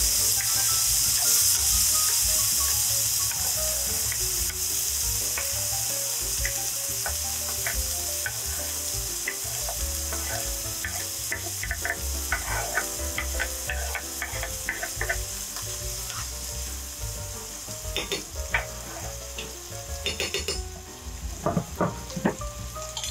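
Chopped vegetables sizzling in olive oil in a frying pan as a sofrito starts to cook. The sizzle is loudest at first and slowly dies down, with a few knocks of a stirring utensil near the end.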